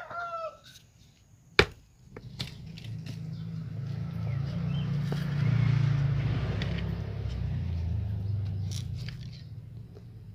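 One sharp knock about a second and a half in, a hammer striking a knife driven into a kemuning root to split it, with a few lighter knocks later. A passing vehicle's low rumble builds over several seconds, is loudest around the middle, and fades near the end.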